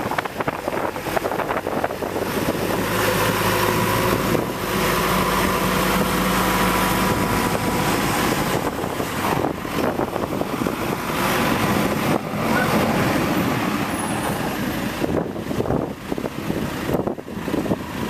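John Deere 410E backhoe loader's turbo diesel engine running as the machine works, pushing snow with its front bucket, with a steady hum, loudest in the middle.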